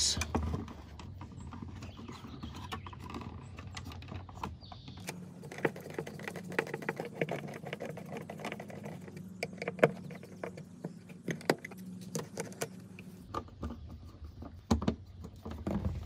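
GFCI outlet and its wires pushed into a plastic electrical box and fastened with a screwdriver: scattered small clicks, scrapes and rattles of handling, a few sharper clicks near the middle.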